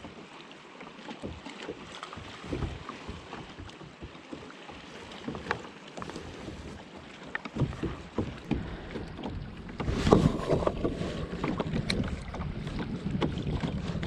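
Water lapping and splashing against a plastic kayak hull, with scattered small knocks and wind buffeting the microphone. It grows louder from about eight seconds in, with a low rush of wind over the microphone from about ten seconds.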